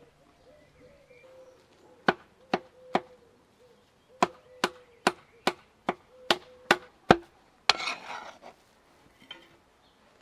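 Heavy steel meat cleaver chopping minced meat on a wooden block. There are three strokes, a short pause, then eight more at about two and a half a second, followed by a brief scrape of the blade across the wood.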